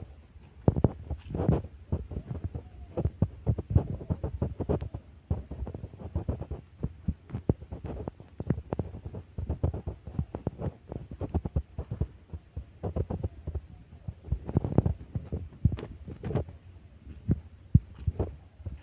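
Footsteps and camera-handling knocks while walking on a dirt path strewn with dry leaves: an irregular run of low thuds with some dry crunching.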